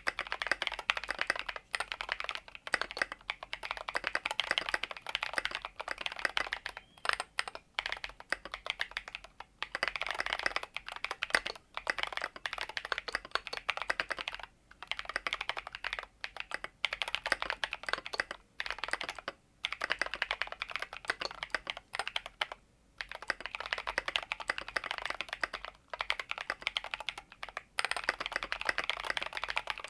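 Mechanical keyboard typing on Drop x Invyr Holy Panda tactile switches in a Tokyo60 keyboard: quick, steady runs of keystrokes broken by short pauses every few seconds.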